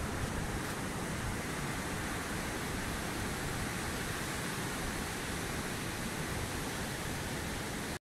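Steady, even rush of surf breaking on a sandy beach.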